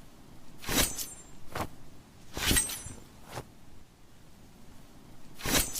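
Katar blades making sharp metallic strokes with a short high ring: three loud ones, the first two each followed under a second later by a fainter click.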